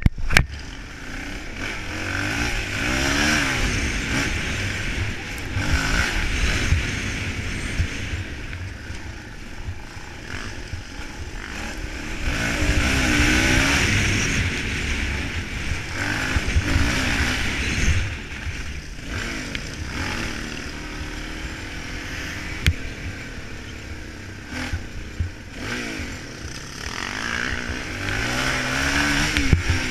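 Suzuki DR-Z400E single-cylinder four-stroke dirt bike engine running under way, its revs rising and falling several times as it accelerates through the gears. A low rush and scattered knocks and clatter run underneath.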